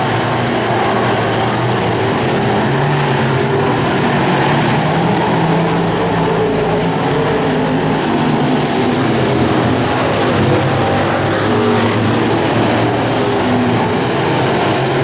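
Several dirt-track stock car engines running together as the cars circle the oval, a loud, steady din whose engine notes waver up and down.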